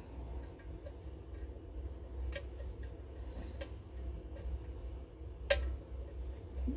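Small metallic clicks of a lock pick and tension wrench working the pins of a Goal GCY-79 pin tumbler lock, a few scattered ticks with one sharper click about five and a half seconds in, over a steady low hum.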